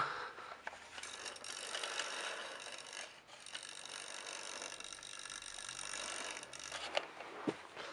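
Bachmann Spencer model locomotive running on its track: its small electric motor and gears whir steadily for several seconds, with a click at the start and a few clicks as it eases off near the end.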